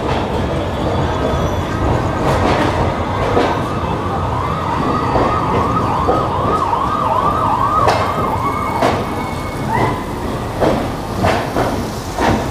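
A siren yelping in quick rising-and-falling sweeps, about two or three a second, for some four seconds in the middle, over the steady running rumble of the moving train with scattered clicks.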